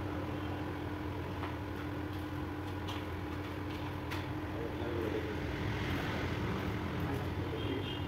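A few sharp metallic clicks from hand tools working on a motorcycle, over a steady background hum, with people talking in the second half.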